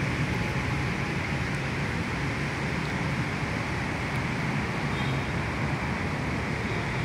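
Triumph Street Twin 900's parallel-twin engine idling steadily through an aftermarket exhaust, with a K&N air filter and a remapped fuel map.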